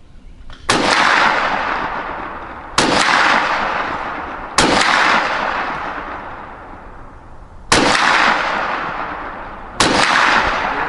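Five single shots from a Ruger PC Carbine in 9mm, fired semi-automatically about two to three seconds apart. Each sharp report is followed by a long echoing decay.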